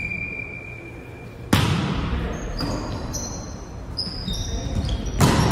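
Volleyball struck hard twice on an indoor court, about a second and a half in and again near the end; each hit echoes through the hall. Short high squeaks come in between.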